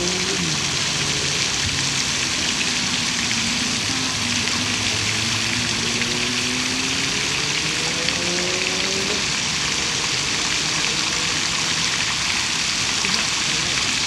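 Fountain jets splashing into a pond: a steady hiss of falling water. Under it, a low hum slowly rises in pitch and stops about nine seconds in.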